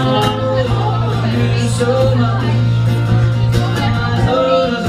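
Live acoustic guitar playing while a woman sings long held notes that bend gently in pitch.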